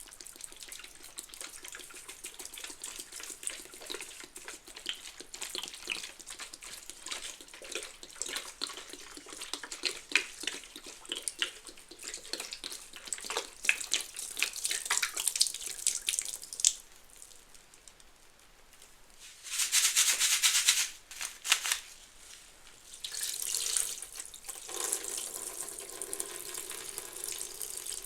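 Soapy suds of Fabuloso cleaner and Mr. Bubble bubble bath crackling with dense, fine pops as a soaked sponge is squeezed. About twenty seconds in comes a short loud rush of water, and water runs again near the end.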